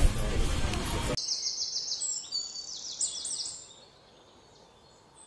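Bird chirping: quick runs of high chirps, repeated several times for about two seconds, then fading away. Before the chirps, about a second of loud, even background noise cuts off abruptly.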